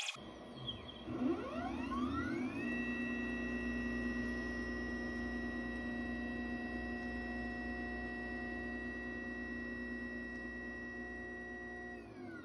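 Stepper motors of a DIY Arduino/GRBL pen plotter driving the pen carriage in one long move. The whine of several steady tones rises in pitch over the first couple of seconds as the motors speed up, holds steady, then falls away near the end as they slow to a stop.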